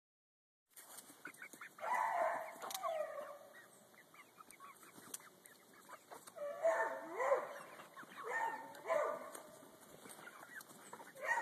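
Small flock of young hens clucking and calling, with a run of calls about two seconds in and repeated calls again from about six and a half seconds on.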